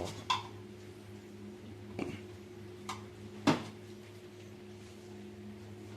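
A steady low electrical hum with a few short light clicks and knocks of handling, the loudest about three and a half seconds in.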